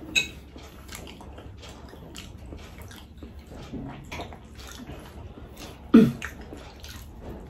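Close-up eating sounds: wet chewing and lip-smacking with many small crackles and clicks as pizza and lasagna are eaten. A sharp click comes just after the start, and a louder thump about six seconds in.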